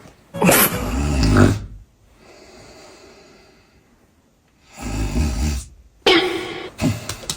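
A woman snoring loudly: a long, deep snore just under a second in and another about five seconds in, with a quieter breath between them, and more snoring sounds near the end.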